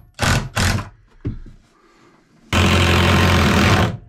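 Ryobi cordless drill driving a screw into wood to fasten a brass drop-ear fitting. Two short bursts come near the start, then a steady run of about a second and a half in the second half that stops suddenly.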